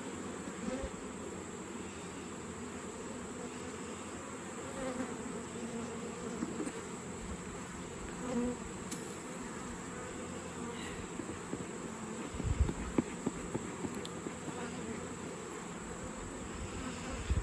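Honeybees buzzing around an open hive, a steady wavering hum. A couple of low thumps come about two-thirds of the way through.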